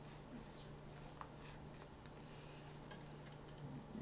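A few faint, short clicks and rustles of trading cards being handled and set down on a table, the sharpest tick nearly two seconds in, over a steady low electrical hum.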